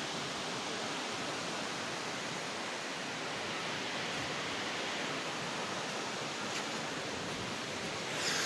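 Wli waterfall falling, a steady, even rush of water with a slight swell near the end.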